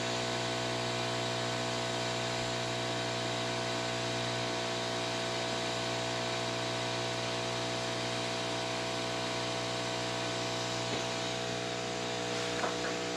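Steady electrical hum over a constant hiss, several tones held level and unchanging throughout.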